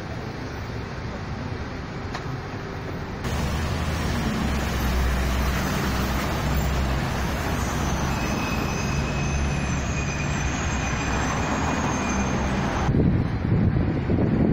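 Steady city street traffic noise. About three seconds in it jumps abruptly louder, and a low engine hum runs under it.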